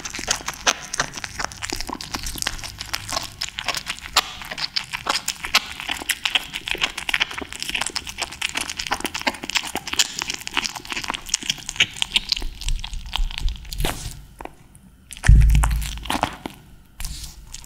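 Kitten eating raw tuna close to the microphone: rapid, continuous wet smacking and chewing clicks. The chewing pauses briefly near the end, then comes a single loud low thump.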